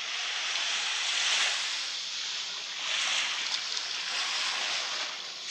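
Surf: a steady wash of sea waves, swelling about a second in and again around three seconds.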